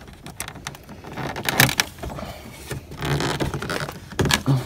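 Clicks, knocks and scraping of hand tools and plastic trim as a pickup's interior door panel is worked loose, with louder knocks about a second and a half in and near the end.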